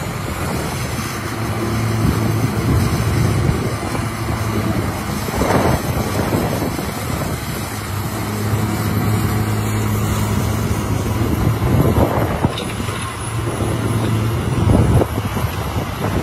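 Caterpillar 345C hydraulic excavator's diesel engine running under load, its drone rising and falling as the machine swings and works. A few short rushes of rock-and-bucket noise come about a third of the way in and near the end.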